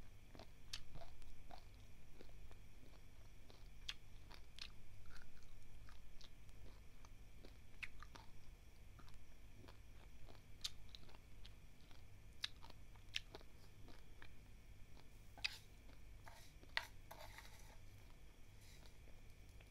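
Close-up chewing of dry, uncooked basmati rice grains: irregular small crunches and crackles, with a few sharper cracks near the end.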